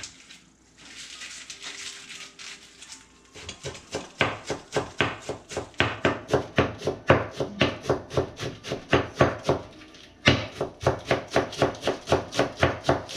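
Knife chopping on a wooden cutting board in quick, even strokes at about four a second, with a brief pause about ten seconds in.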